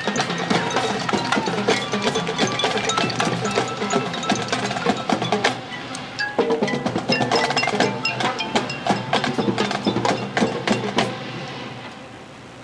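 Marching band percussion playing a busy, fast passage of struck mallet keyboards, bells and drums. It ends about eleven seconds in and rings away.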